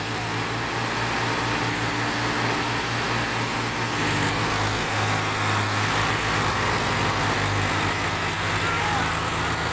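Diesel tractor engines of an Eicher 5660 and a John Deere running hard under heavy load in deep mud. The engine note shifts about four seconds in.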